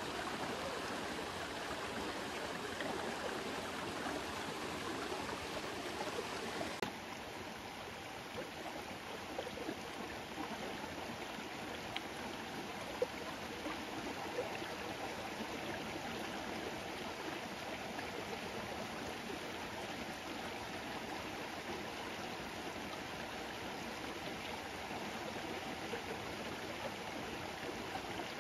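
Small rocky stream running steadily, an even rush of water. Its tone shifts slightly about a quarter of the way through.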